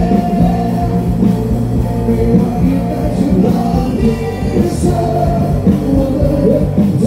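Loud rock music with a singer's voice, steady throughout.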